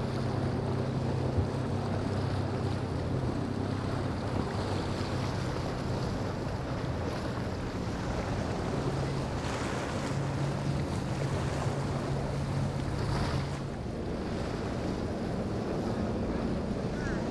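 Motorboat engines droning as powerboats pass, with rushing water and wave noise and wind on the microphone. The low engine hum grows stronger about halfway through and drops away about three-quarters of the way in.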